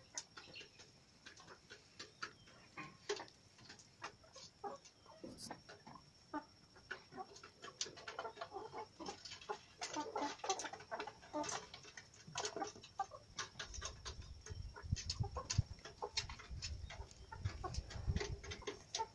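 Flock of young kienyeji chickens clucking while pecking maize grains off hard ground, with many quick pecking clicks. A low rumble joins in about two-thirds of the way through.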